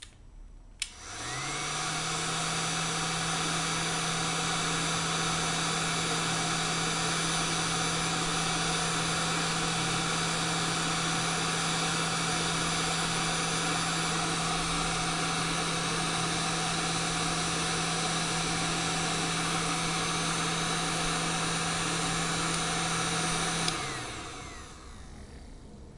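Hot-air heat gun clicked on about a second in, its fan spinning up to a steady blowing hum with a constant low tone, then switched off near the end and winding down. It is blowing hot air on a surface-mount chip to melt its solder for desoldering.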